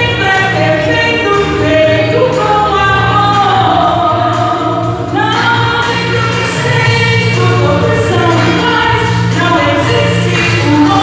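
Church choir singing a Portuguese gospel hymn with accompaniment. A long note is held and ends about halfway through, where the next phrase begins.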